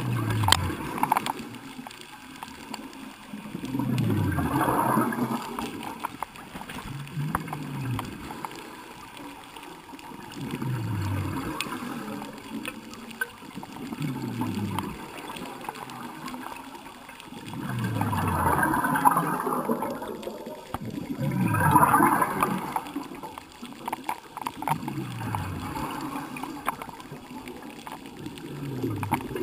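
Scuba diver breathing through a regulator underwater, recorded from the camera's underwater housing: slow, regular breaths about every three to four seconds, each breath out letting go a burst of bubbles.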